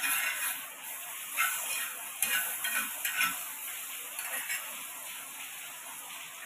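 Butter sizzling on a hot tawa while a metal spatula scrapes and spreads it in several quick strokes during the first half; after that the sizzle fades slowly.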